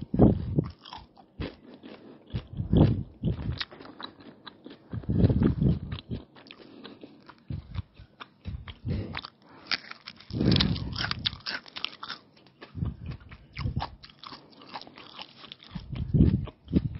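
Close-up biting and chewing of egg rolls, flatbread wraps filled with raw onion and cucumber: a steady crunching with loud bites every few seconds.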